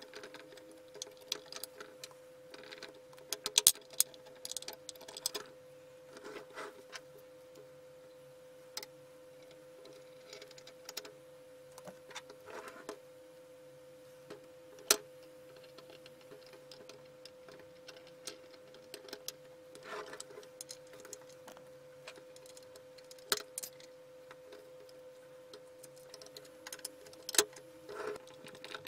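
Painted metal parts of a vintage balance scale being handled and fitted together: scattered light clicks, clinks and taps, with a few sharper metal knocks spread through, over a faint steady hum.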